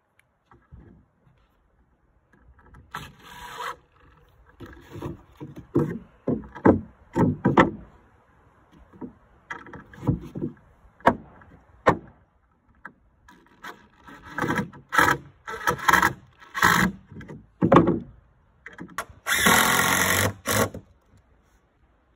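Cordless drill driving screws through wooden floorboards into the joists: short bursts of the motor, with a longer run near the end. Between the runs there are separate knocks of wood on wood.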